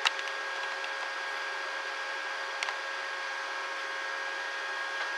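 Cooling fan of a Parkside PIFDS 120 A1 inverter flux-core welder running steadily with a constant whine, the machine switched on and idle. A couple of light clicks at the start and one more about two and a half seconds in.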